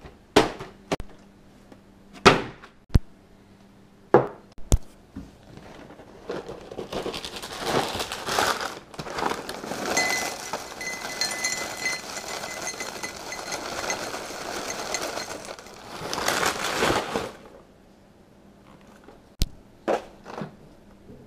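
Dry Post Honeycomb cereal poured from its box into a glass tumbler. The rattling pour lasts about ten seconds, with pieces clinking against the glass and spilling onto the plastic-covered table. Several sharp knocks come before it as the box and glass are handled, and a couple of clicks follow near the end.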